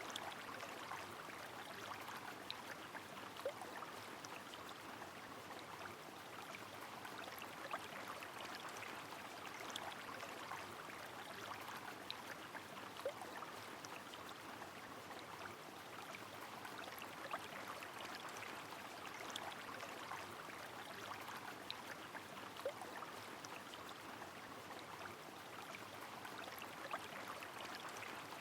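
Rain falling over a flowing river: a steady, even rush of water, dotted throughout with many small drop ticks and an occasional louder patter.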